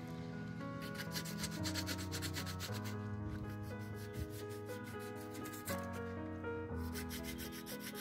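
Quick back-and-forth rubbing of an abrasive pad by hand on the painted steel edge of a fridge door, scuffing off rust and loose paint before repainting. Background music with held notes plays underneath.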